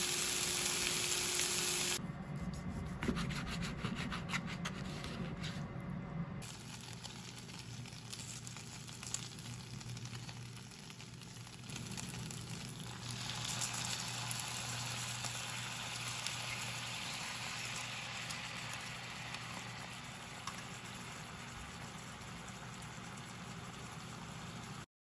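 Chicken frying in a nonstick pan: a steady sizzle, louder in the first two seconds and again through the second half as it cooks in sauce. A few seconds in there are light clicks of a utensil against the pan.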